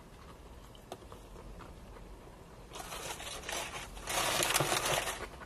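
Rustling and scraping of a bag being rummaged through by hand, starting about halfway in, loudest near the end, then dying down.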